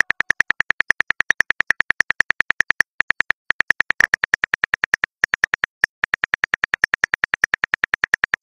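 Smartphone keyboard click sound effect: rapid, evenly spaced key taps, about eight a second, as a text message is typed out, with a few short pauses between runs.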